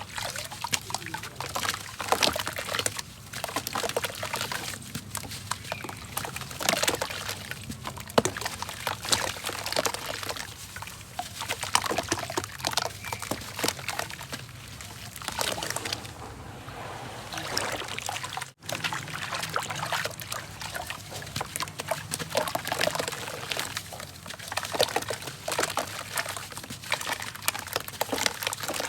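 Wet golden sand crumbling into water: dense, irregular crackling and crunching, with trickling and sloshing water.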